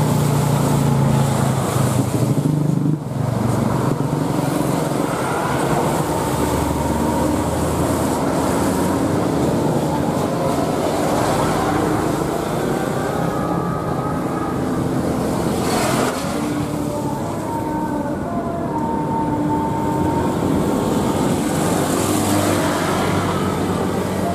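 Turbofan engines of a twin-engine widebody airliner running at taxi power: a steady rushing sound with faint whining tones that drift slightly in pitch.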